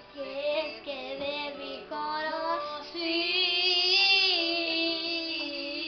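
A young girl singing, moving between notes and then holding one long note from about three seconds in.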